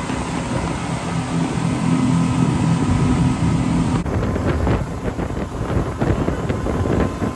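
Speedboat engine running at a steady low drone. After a cut about four seconds in, it gives way to a noisier, uneven rushing sound with scattered knocks.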